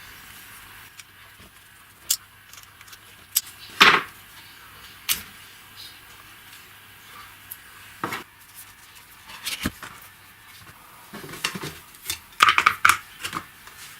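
Hard objects being handled: a scattered series of knocks and clinks over a low steady background. The loudest comes about four seconds in, and a quick cluster of clinks comes near the end.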